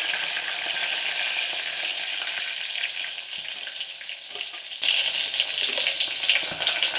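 Mustard seeds and curry leaves sizzling in hot oil in a steel pot: an Indian tempering (tadka) frying. The sizzle eases a little, then suddenly gets louder about five seconds in.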